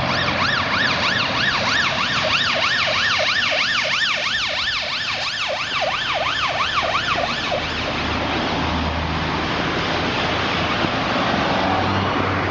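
Ambulance siren on its fast yelp, sweeping up and down about three times a second as it passes, and cutting off about seven and a half seconds in. Road traffic noise and a low engine hum carry on after it.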